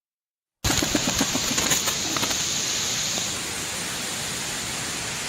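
A steady, loud hiss of rushing noise that starts abruptly about half a second in, after silence, and eases slightly after about three seconds.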